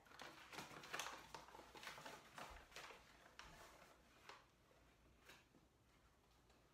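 Faint crinkling and rustling of a plastic bag being handled, a quick run of crackles over the first few seconds that thins out and fades.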